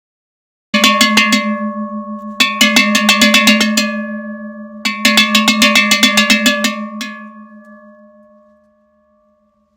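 Handmade long bulged cowbell (campanaccio lungo abbombato) shaken in three bursts, its clapper striking rapidly against the bell. After the third burst the bell rings on with a low tone and fades out over about two seconds.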